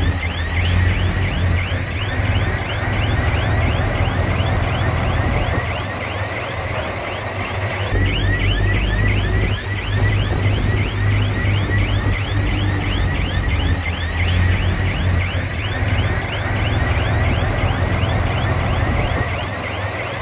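Crawler bulldozer working: diesel engine running steadily under a rapid, even run of high squeaks from the steel tracks, several a second.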